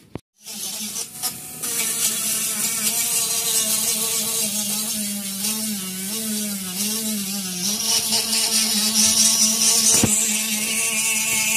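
Small handheld power tool motor running steadily with a strong hiss, its pitch wavering and dipping in the middle as it bears on the work.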